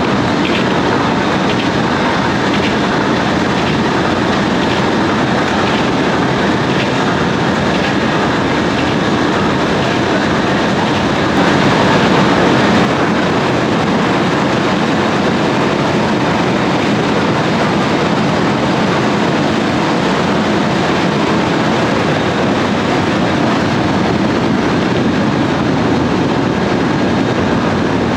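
Potato harvesting machinery running: a steady mechanical clatter with a regular clicking rhythm through the first half, swelling briefly louder about halfway through.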